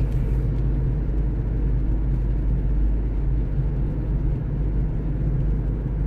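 A car in motion heard from inside its cabin: a steady low rumble of engine and tyre noise at an even cruising speed.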